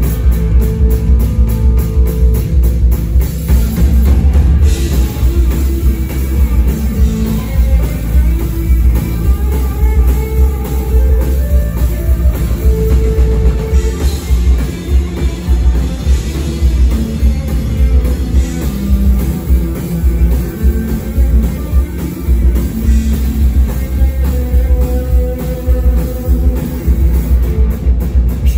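Live rock band playing loudly: electric guitar, bass guitar and drum kit, heard from the audience with a heavy, booming bass.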